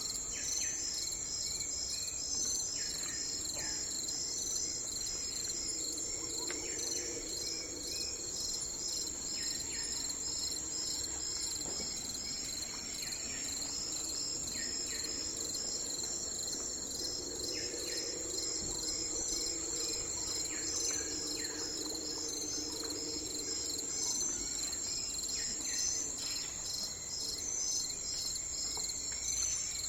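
Steady chorus of crickets trilling in fast, even pulses, with short calls repeating every couple of seconds beneath it and a soft low hum swelling in twice.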